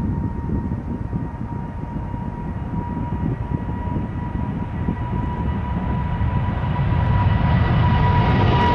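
KLM Boeing 777-200's twin GE90 turbofans at takeoff thrust: a low rumble under a steady high whine, growing louder over the last few seconds as the jet lifts off and climbs toward the listener.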